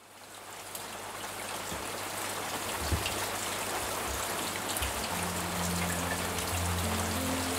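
Steady rain falling and pattering on wet ground, fading in at the start and growing louder. Low notes of background music come in about five seconds in.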